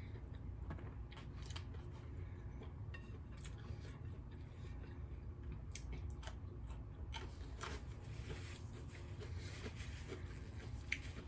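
A person chewing a mouthful of food close to the microphone: scattered short mouth clicks and smacks over a low steady hum.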